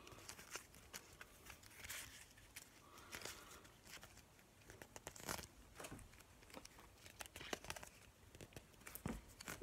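Baseball trading cards sliding and flicking against each other as a stack is thumbed through one card at a time: faint, with short irregular clicks and brief rustles.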